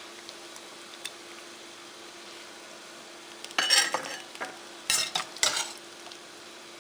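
Metal slotted spoon scraping and clanking against a steel pot while boiled chicken pieces are fished out of simmering broth, over a steady low hiss. A burst of scraping comes a little past halfway, then two sharp clanks.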